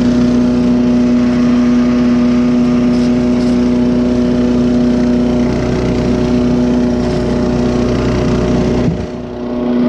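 LANDWORKS 7 HP wood chipper's gasoline engine running steadily at full throttle, a loud, even engine drone. The loudness dips suddenly for about a second near the end.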